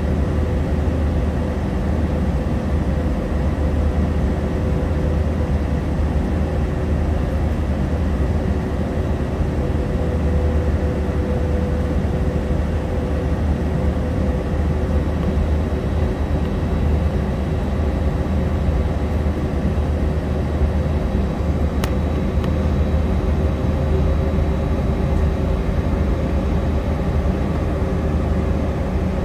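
Jet airliner cabin noise with the engines running at low power while the plane stands or taxis: a steady low rumble and hiss with a faint steady hum.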